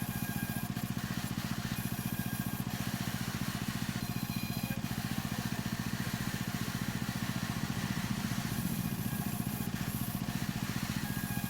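A machine's motor running steadily, with a fast, even pulse.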